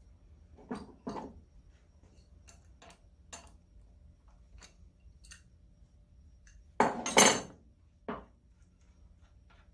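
Hand wrench clinking and knocking against the bolts and side cover of a 3 hp International Harvester Type M engine's crankcase as the cover bolts are undone. Two knocks about a second in, light ticks through the middle, a louder metallic clatter about seven seconds in and one more knock soon after.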